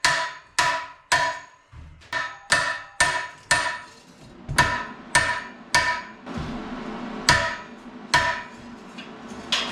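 A hammer tapping on a steel car sub rail, about a dozen sharp metallic strikes that ring briefly, roughly two a second with a couple of short pauses. A faint steady hum runs underneath in the second half.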